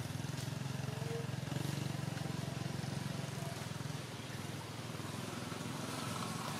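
Steady low drone of an engine running, easing off slightly about four seconds in.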